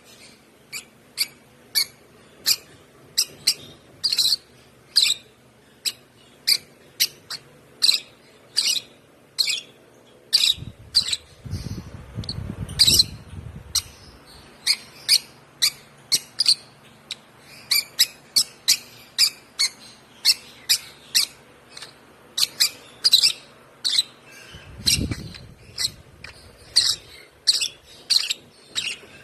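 A one-month-old African lovebird chick chirping over and over, short sharp high chirps at about two a second. A low rumble comes in twice, briefly.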